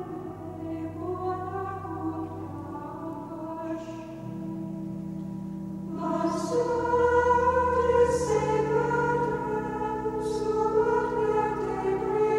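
Choir singing a slow piece in long held chords, growing louder about halfway through.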